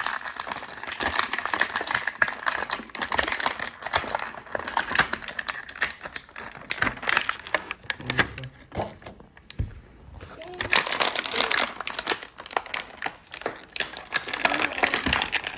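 Toy packaging being handled: dense, rapid crinkling and crackling of plastic and cardboard, with a short lull a little past the middle.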